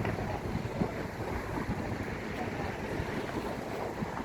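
Wind buffeting the microphone over a low, uneven rumble of road traffic.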